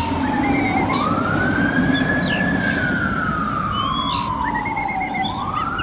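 Fire ladder truck's siren wailing, one tone that rises and then falls slowly, starting to rise again near the end, over the low rumble of the moving truck.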